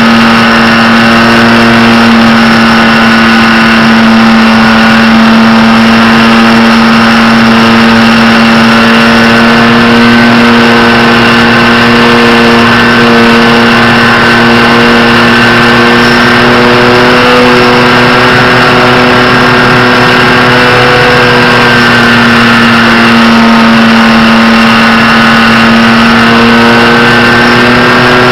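Electric motor of an FPV radio-controlled model running under power, a loud steady whine heard through the onboard camera's microphone. Its pitch drifts slowly up and down with the throttle.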